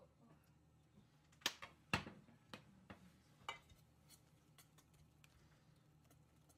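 Spoon and wire whisk clinking against a stainless steel mixing bowl: about five sharp clinks over a couple of seconds, the loudest about two seconds in, followed by faint light ticks as the whisk is worked through the batter.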